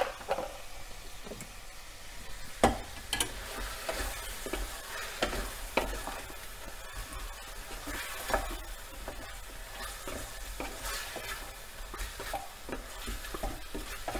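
Chicken pieces sizzling in hot oil in a metal pot as a wooden spatula stirs them. The spatula scrapes and knocks against the pot now and then.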